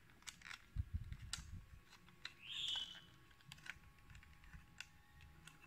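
Faint clicks and small plastic knocks from a GX-40R Godmars robot figure's metal-jointed arms being worked by hand. A brief higher rub comes about two and a half seconds in.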